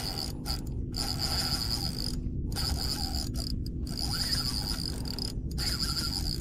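Spinning fishing reel being cranked against a hooked fish, its gears clicking and whirring, under a steady high pulsing chirr and a low hum.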